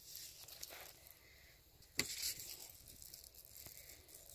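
Faint rustling and handling noise from a fabric brass catcher and its strap being worked around an AR-15's handguard, with one sharp click about two seconds in.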